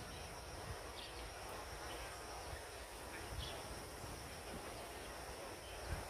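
Faint outdoor ambience of insects droning steadily, with a few short faint high chirps scattered through it.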